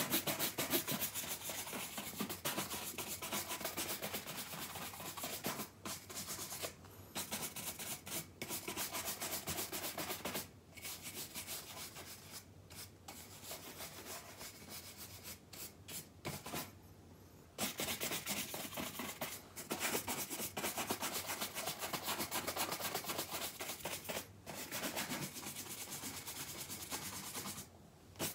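Horsehair shoe brush swept rapidly back and forth over leather shoes: runs of brisk brushing strokes broken by several short pauses, softer for a while past the middle.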